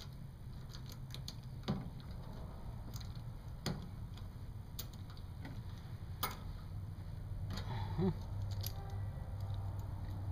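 A few light, separate metallic clicks of a metric hex key being handled at the brass service valves of a mini-split outdoor unit while the valves are opened to release the refrigerant, over a steady low hum.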